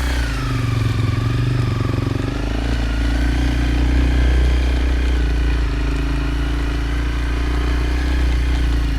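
Motorcycle engine running steadily at low revs, close by, with a wavering higher whine in the first couple of seconds.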